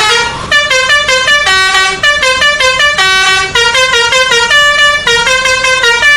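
Multi-tone 'telolet' Basuri bus horn playing a quick tune of short notes that step up and down in pitch.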